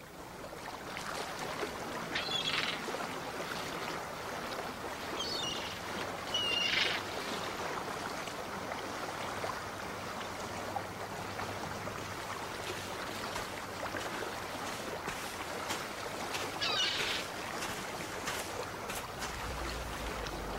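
Sea waves washing steadily as the sound fades in, with a few short high calls about 2, 5, 6.5 and 17 seconds in.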